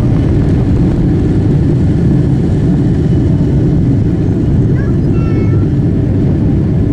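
Cabin noise of a Boeing 777-200ER on its take-off roll: the jet engines at take-off thrust and the wheels rumbling on the runway, a loud, steady, low noise.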